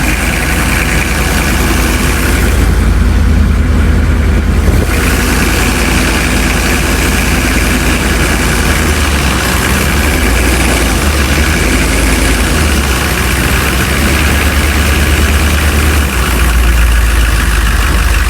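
Humvee's diesel V8 running with a deep, steady rumble whose level shifts a few times.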